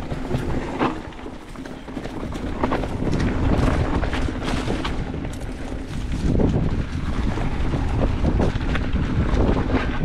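Wind buffeting the microphone over the rumble of mountain-bike tyres on a dry dirt trail at speed, with frequent knocks and rattles from the bike over rough ground.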